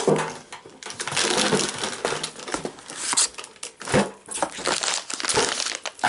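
Plastic packaging crinkling and rustling while packs of dog food are handled, with the scrape and knock of cardboard boxes.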